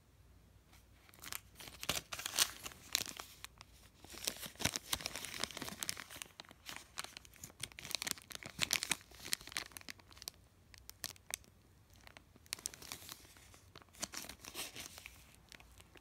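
Clear plastic packaging bag crinkling and rustling as it is handled, in irregular runs of crackles with a lull about two thirds of the way through.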